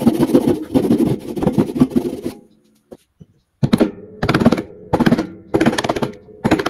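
Japanese pull saw with a rip-cut blade sawing by hand through a small hardwood block with quick rasping strokes, stopping a little over two seconds in. After a short pause come several short bursts of rapid knocking as a chisel breaks out the waste between the saw kerfs.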